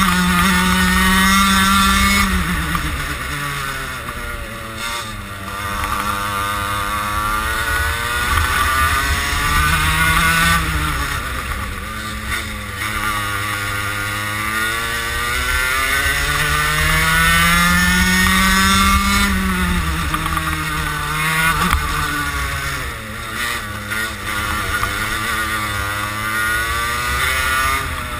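Racing kart engine heard from on board, its note climbing as the kart accelerates and dropping away as it slows for corners, several times over.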